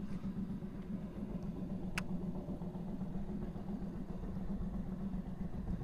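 Small boat motor running steadily at an even speed, a low hum. A single sharp click about two seconds in.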